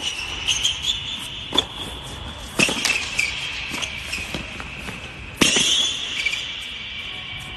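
Tennis ball struck by racquets and bouncing on a hard court during a practice rally: a few sharp pops, the loudest about two and a half and five and a half seconds in, each echoing briefly under a fabric air dome.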